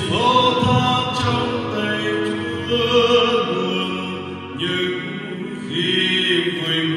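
A man singing a slow Vietnamese Catholic hymn to keyboard accompaniment, heard through a church's Bose MA12 column loudspeakers during a sound-system test.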